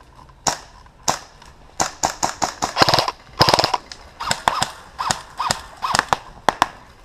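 Airsoft guns firing single shots and quick bursts, a series of sharp snaps and clacks, with the densest, loudest run about three seconds in.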